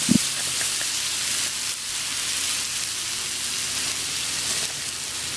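Hot glazed chicken sizzling with a steady hiss, its pan juices and the can liquid just poured over it. There is a short thump just at the start.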